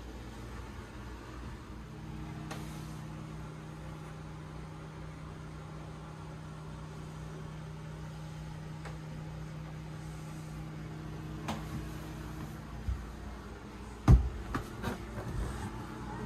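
A steady low mechanical hum, with a few knocks near the end, the loudest about fourteen seconds in.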